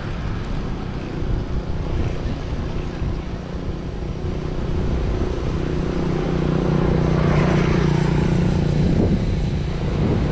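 Motor vehicle engine drone heard while riding a road bike, over wind rush on the microphone. The drone grows louder about halfway through and peaks near the end, as the vehicle comes close.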